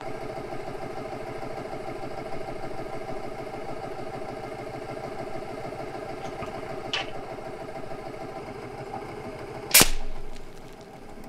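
A steady mechanical drone like an idling engine, then a single sharp shot from an AGT Vulcan 3 .22 PCP air rifle near the end, the loudest sound, with a short decay.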